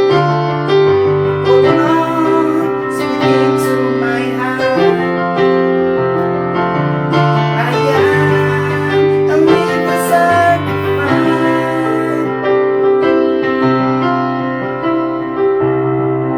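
Keyboard piano playing slow, sustained chords over a bass line that changes every second or two.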